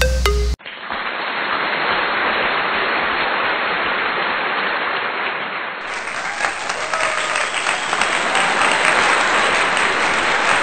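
Electronic music cuts off about half a second in, followed by steady crowd applause.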